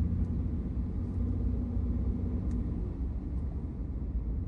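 Low, steady rumble of a truck running on a snowy road, heard from inside the cab, with a faint engine hum that fades about three seconds in.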